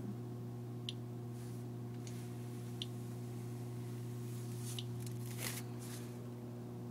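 Geiger counter chirping on single counts, three short high clicks about two seconds apart, the slow rate of background radiation, over a steady low electrical hum. A brief rustle about five and a half seconds in as the foil-wrapped lead shield is lifted away.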